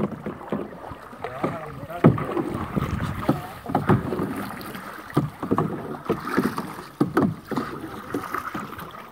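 Canoe paddling: a string of irregular paddle strokes, sharp splashes and knocks in the water.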